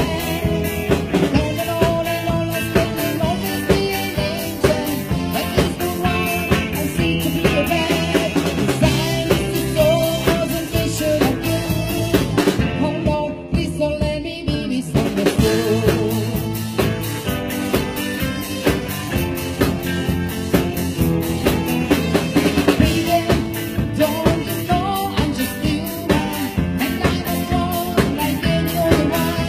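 Live band playing a song on drum kit, electric guitar and keyboard, with a steady drum beat. The cymbals and drums drop out briefly about halfway through.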